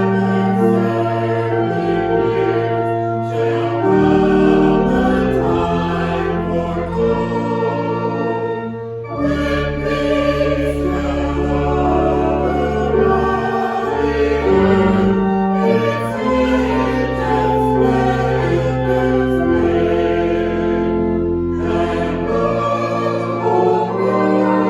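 Choral hymn music: a choir singing long held chords over a deep bass line, the chords changing every second or two.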